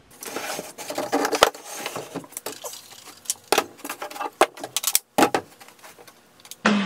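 Tools and boards being handled and set down on a worktable: a run of irregular knocks, clicks and clatters, with a short break a little after the middle.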